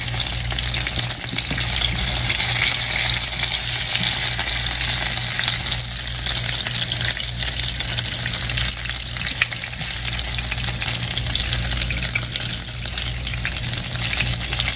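Skin-on chicken thighs sizzling in their own rendered fat in a skillet, no added oil: a steady frying hiss with fine crackles and pops throughout.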